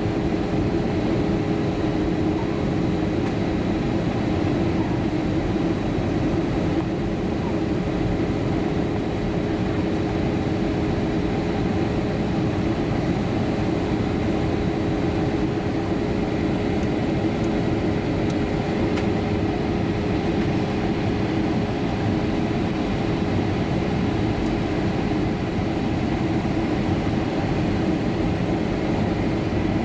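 Steady cabin noise of an Airbus A320-232 in flight, heard from a window seat beside the wing: the drone of its IAE V2500 turbofan engines and the rush of air, with a steady hum under it.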